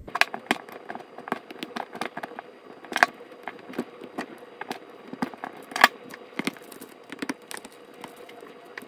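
Plastic wrap being picked and peeled off an AA lithium battery with pliers: irregular small crackles and clicks of the film and the pliers' jaws on the battery, with a couple of sharper clicks about three and six seconds in.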